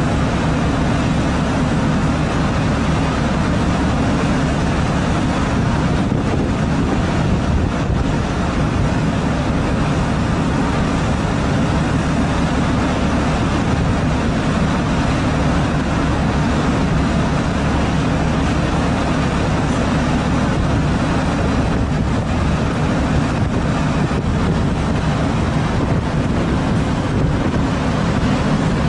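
A fishing boat's engine running steadily, with wind and water noise on the microphone.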